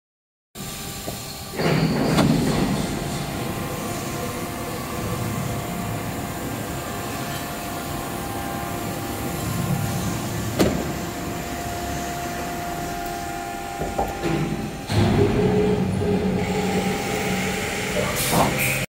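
Automatic-feeding CNC woodworking router at work: its motors run steadily with a faint whine. There are louder sliding, rumbling passages about two seconds in and again near the three-quarter mark as the board and machine parts move along the table.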